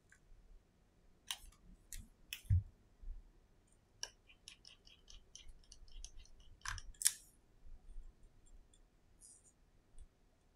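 Faint small metal clicks and scratchy taps of a precision screwdriver working the bottom screws beside an iPhone 11's charging port, coming in quick irregular runs, with one dull knock about two and a half seconds in.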